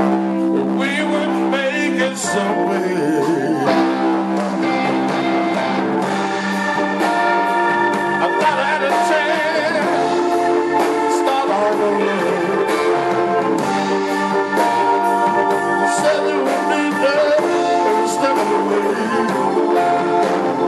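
Live electric blues: a man sings over his own electric guitar, with wavering bent notes and steady accompaniment throughout.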